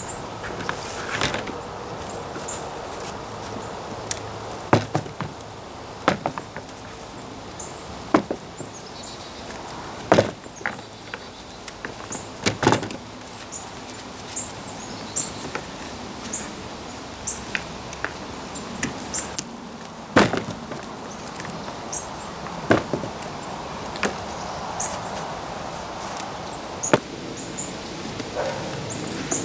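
Digging through damp soil in a sweet potato container: a continuous rustle of soil with sharp knocks and scrapes every couple of seconds.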